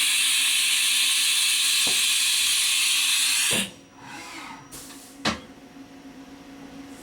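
A loud steady hiss of air from a 1996 Haas HS-1 horizontal machining center cuts off suddenly about three and a half seconds in. A single clunk follows about five seconds in, over the machine's steady hum.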